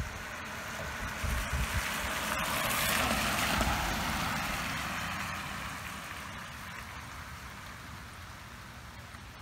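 Minivan driving past on a wet road, its tyres hissing on the water; the sound swells as it comes close about three to four seconds in, then slowly fades as it drives away.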